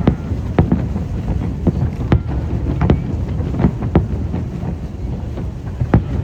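Fireworks display: about a dozen sharp bangs of aerial shells bursting at irregular intervals over a steady low rumble.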